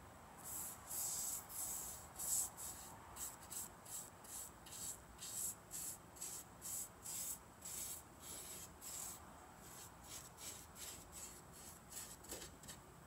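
Primer applicator swabbing pinch weld primer onto the bare metal rim of a tailgate window opening: quick, light, scratchy strokes at about two a second, strongest in the first few seconds.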